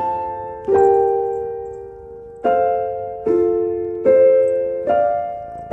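Background music of soft piano chords, struck slowly one after another, each left to ring and fade before the next, about one a second.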